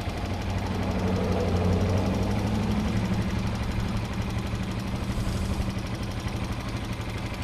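ATV (four-wheeler) engine idling with a steady, pulsing hum; the revs rise a little about a second in, then settle.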